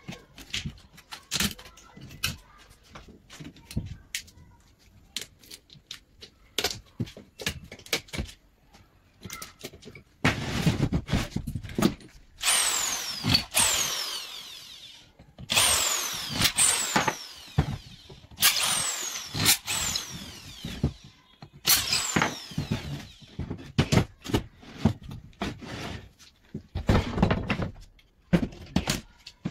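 Scattered knocks and clicks of handling, then repeated short runs of a handheld power tool such as a drill, each lasting a second or two with its whine falling in pitch.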